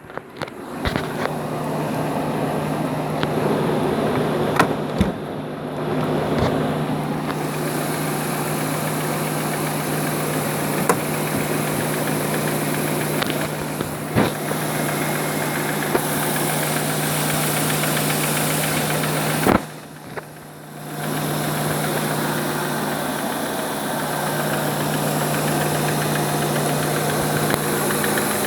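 2001 Audi A8 D2's 6.0-litre W12 engine starting from cold about half a second in, then idling steadily. The sound dips away for a second or so about two-thirds through and comes back.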